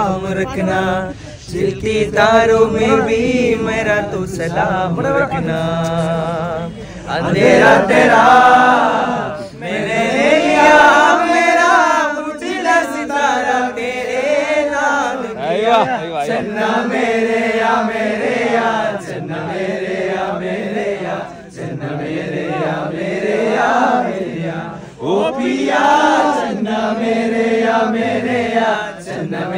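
A group of young men singing a Hindi song together without instruments, their voices carrying long, drawn-out wavering notes.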